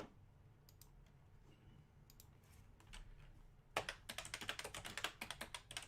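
Computer keyboard typing: a few scattered key clicks, then a quick, steady run of keystrokes from about four seconds in.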